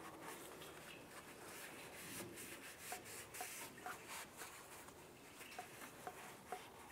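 Faint rubbing of a rag wiping oil off an engine's oil filter mount, with a few small light ticks.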